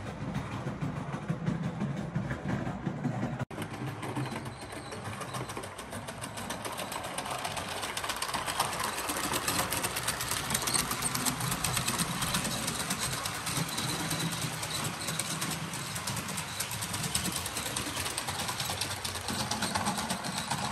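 Model electric trains running on their track: a steady small-motor hum with fast clicking of the wheels over the rails. The sound breaks off for an instant about three and a half seconds in, then the running carries on.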